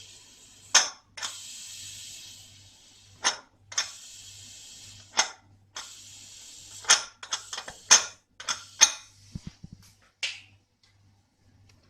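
Pressure cooker releasing its steam in hissing spurts through the vent, with sharp clicks between them, to let out the pressure after one whistle before the lid is opened. The hiss weakens and dies out after about nine seconds.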